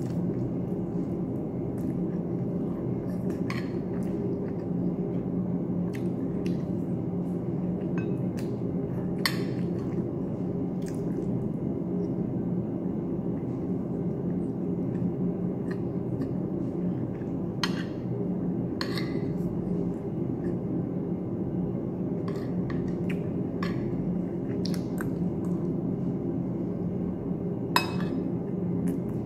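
Fork and spoon clinking and scraping against a plate now and then while eating, a dozen or so short sharp clicks spread unevenly, over a steady low hum.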